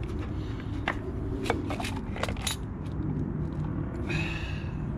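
A few sharp clicks and light metallic clinks as a new bicycle cassette is handled out of its package, over a steady low rumble. A brief higher squeak comes near the end.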